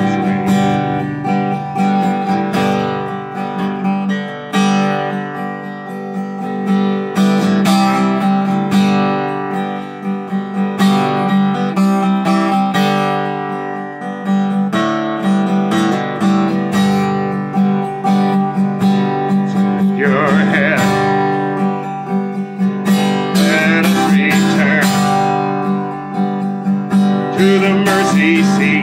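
Acoustic guitar strummed steadily in a song, with a man's voice singing over it in places, mostly in the latter part.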